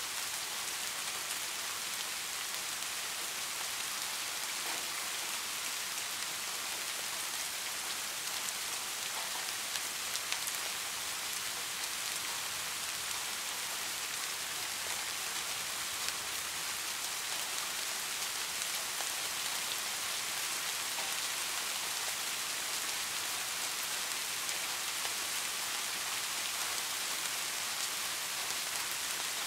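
Steady rain pattering on window glass: an even hiss with many small drop taps scattered through it.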